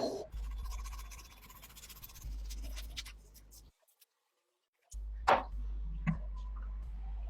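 Light scratching and scraping of hand sanding on a patched aluminum engine case. It breaks off into a second of dead silence, then two sharp knocks less than a second apart.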